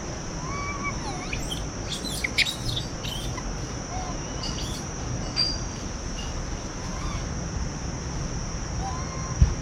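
Wild birds chirping and calling in short, sliding whistles over a steady high-pitched insect drone, with a low thump near the end.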